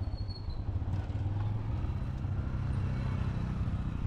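Motorcycle engine running steadily under the rider as the bike moves along a rough dirt road, a low, even hum.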